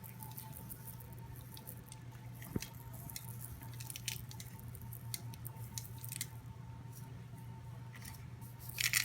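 Sprinkles being shaken from their container onto fudge in a pan: many small, scattered, faint ticks, with one sharper click about two and a half seconds in, over a steady low hum.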